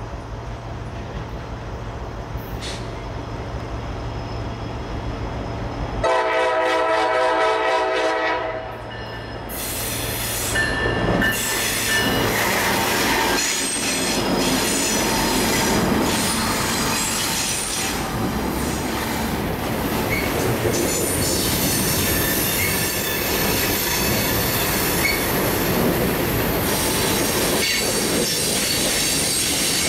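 A diesel-hauled freight train approaches with its engines running. About six seconds in, the locomotive horn sounds one held chord for nearly three seconds. The Norfolk Southern diesel locomotives then pass close by, followed by loaded hopper cars rolling past, wheels squealing and clacking over the rail joints.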